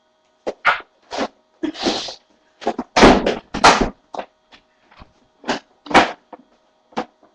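A string of about a dozen irregular knocks and bumps, loudest around three to four seconds in, over a faint steady hum.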